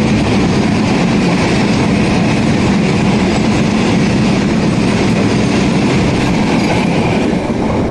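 Freight train of BOXN wagons running past at speed, about 70 km/h, with a loud, steady rumble and rattle of wheels on the track. The noise starts to fall away near the end.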